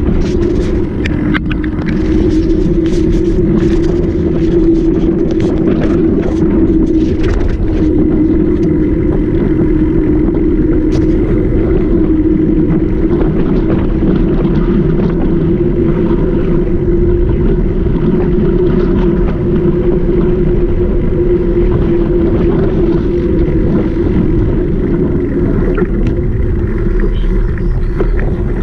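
Mountain bike rolling at speed: a steady hum and rumble of tyres and wind over the microphone, with clicks and rattles from the bike on rough ground in the first several seconds.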